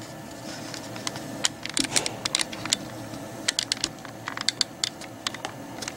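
Irregular clicking and tapping of a computer keyboard and mouse, in two quick runs of clicks.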